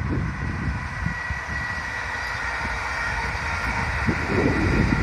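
An electric multiple-unit passenger train passes in the distance with a steady hum and a thin high whine, growing a little louder near the end. Wind buffets the microphone with low rumbling gusts.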